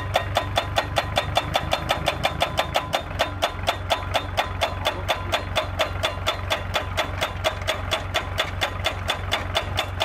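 YBM-3000 solar pile driver's hammer striking a steel post to drive it into the ground, an even run of about five blows a second over the steady running of the machine's engine.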